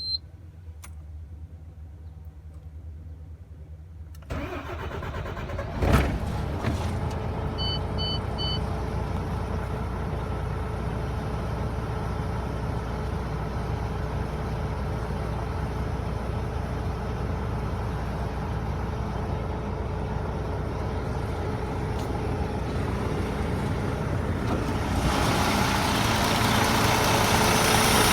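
MAN TGA 26.480 truck's six-cylinder diesel being started: after a few seconds of quiet the starter cranks, the engine catches with a sharp thump about six seconds in and settles into a steady run, growing louder near the end.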